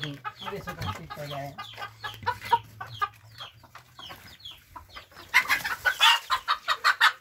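A flock of chickens clucking, with many short calls overlapping. Near the end the clucking turns louder and faster.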